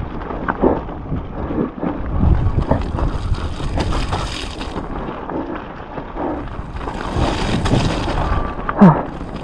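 Strong wind buffeting the camera microphone, with a mountain bike clattering and rattling over a rough, wet, muddy trail at speed.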